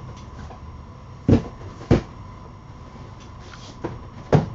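Cardboard boxes being handled and set down, giving three sharp knocks, the first two about half a second apart and the third near the end, with a softer knock just before it.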